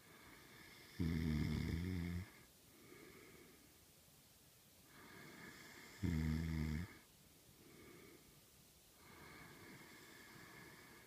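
A man snoring in his sleep: two loud snores, each about a second long and roughly five seconds apart, with softer breathing between.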